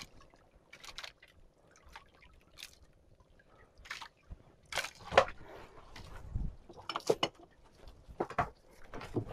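Irregular drips and small splashes of water around a small boat at sea, sparse and faint at first, then louder and more frequent from about halfway.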